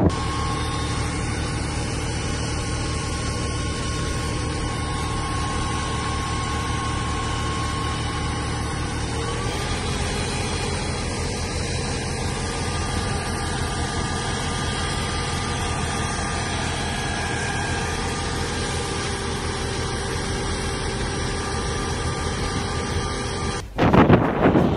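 Fire engine's truck engine idling steadily, with a small shift in pitch about nine seconds in. It cuts off near the end and gives way to wind buffeting the microphone.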